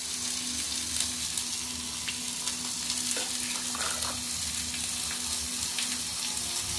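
A steel ladle scooping thick dalma (lentil-and-vegetable stew) from an aluminium pressure cooker into a steel bowl, with light clinks of metal on metal now and then. Underneath there is a steady hiss and a low hum.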